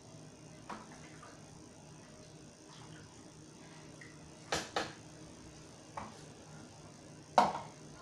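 Wooden spoon stirring stew in a stainless steel pot, with five sharp knocks of the spoon against the pot: two close together about halfway through, and the loudest near the end.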